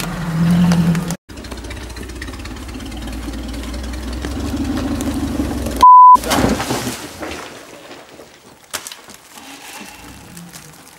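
Off-road 4x4 engines running, the sound breaking off briefly about a second in. About six seconds in comes a short, very loud steady beep. After it a quieter, more distant engine is heard as an off-roader climbs a leaf-covered slope, with a few clicks.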